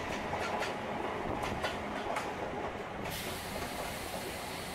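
Indian Railways passenger train rolling past a station platform: a steady rumble of wheels on rail with a few faint clicks, and a higher hiss that joins about three seconds in.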